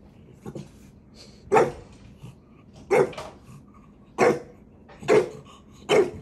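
A small dog barking five short, sharp barks, roughly a second apart.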